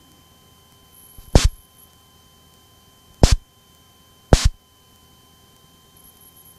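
Three short, loud pops in the cockpit intercom audio, the second about two seconds after the first and the third a second later, over a faint steady electrical whine.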